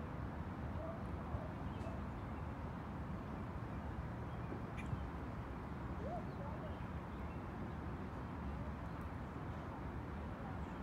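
Riverside ambience: a steady low rumble, with a few faint, short animal calls about half a second in and again about six seconds in.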